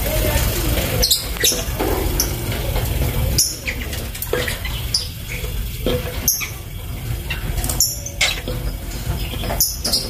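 Fischer's lovebirds giving short, sharp, high-pitched chirps at irregular intervals, about ten in all, over a steady low rumble.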